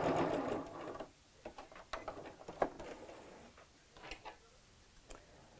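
Butterick electric sewing machine stitching, then stopping about half a second in. After it stops come a few faint clicks and taps as the sewn fabric is moved away from the needle.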